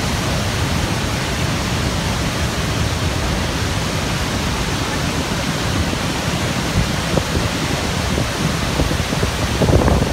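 Steady, dense rushing of the Horseshoe Falls at Niagara, heavy water pouring over the brink, with a brief louder burst near the end.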